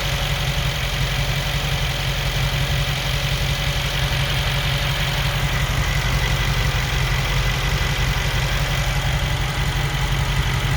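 Mercedes-AMG G63's twin-turbo V8 idling nice and steady, freshly repaired, with its vacuum line reconnected so no vacuum pump or blower noise is heard over it.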